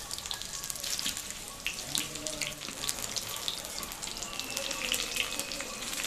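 Besan-battered eggplant slices (beguni) deep-frying in hot oil in a kadai: a steady sizzle with constant small crackles and pops.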